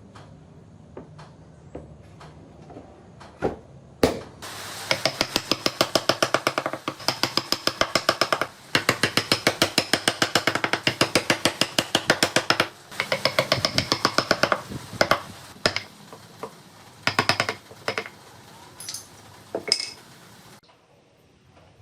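Hammer tapping a carving chisel into wood in rapid, even runs of about five blows a second, each blow with a short metallic ring, with brief pauses between runs. After that come a few scattered single taps, and then they stop.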